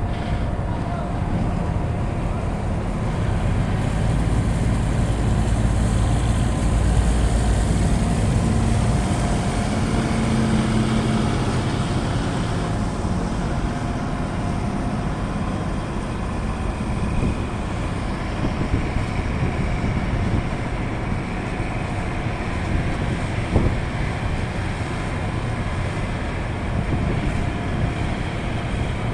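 Engine running steadily: a low rumble with faint steady tones over it, a little louder in the first third, and a single small knock about two-thirds of the way through.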